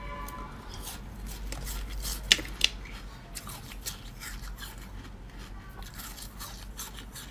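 Crinkling, scraping and tearing handling noises of food and its packaging, with two sharp clicks about two and a half seconds in.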